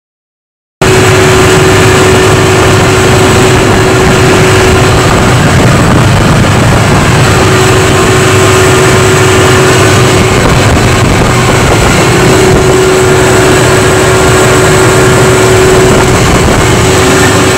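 Jenbacher biogas gas-engine generator set running at a steady speed: a loud, dense engine noise with a constant droning tone. It cuts in suddenly just under a second in.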